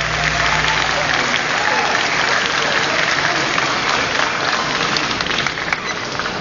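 Audience applauding after a gamelan piece, while the low ringing of the ensemble's last notes dies away in the first second.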